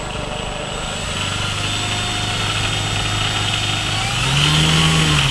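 Electric motor and propeller of an E-flite Valiant RC plane running on the ground, steady at first, then rising in pitch about four seconds in and dropping back near the end, as if throttled up briefly.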